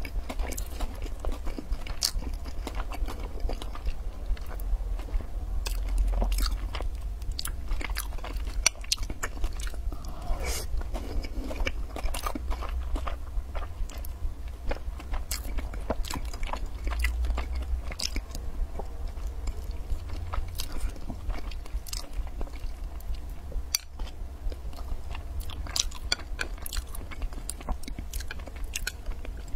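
Close-miked chewing and biting as a person eats sugar-dusted food, with many quick, sharp mouth clicks and smacks coming irregularly throughout.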